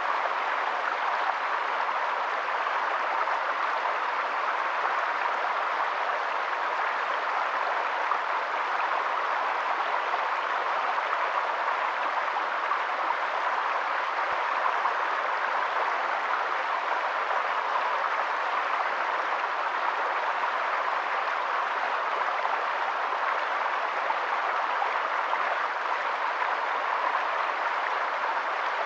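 Stream water flowing and splashing, a steady even rush.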